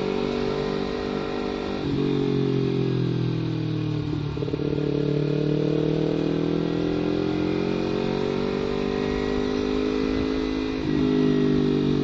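Kawasaki Ninja 250 FI parallel-twin engine running through an aftermarket CLD header and Prospeed Black Series silencer, giving a steady exhaust note. Its engine speed rises and falls a little, and it gets louder suddenly about two seconds in and again near the end.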